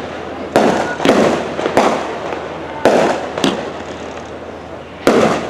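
Aerial fireworks shells bursting, about six sharp bangs at irregular intervals, each trailing off in a rumbling echo, with a lull of over a second before the last one.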